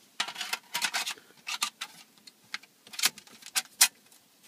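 Short plastic and sheet-metal clicks, scrapes and rattles as an aftermarket car stereo head unit is handled and fitted into its metal mounting bracket. They come irregularly, several in the first second or so and a sharp pair near the end.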